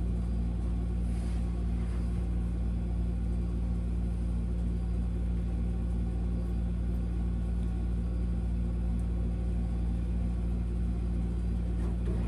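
A steady low hum, unchanging throughout, with nothing else standing out above it.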